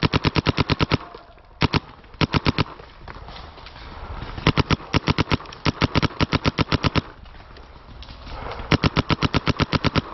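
Planet Eclipse Etha 2 paintball marker firing in rapid strings of about a dozen shots a second: several bursts, the longest lasting about two and a half seconds.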